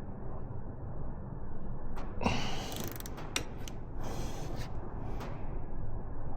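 Torque wrench tightening a frame slider bolt into the engine's motor mount, heard as a scatter of short ratchet clicks and creaks from about two seconds in, over a low steady hum.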